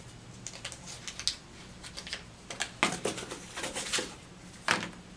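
Light clicking and crinkling as a tempered-glass screen protector kit and its packaging are handled, with two sharper knocks, one about three seconds in and one near the end.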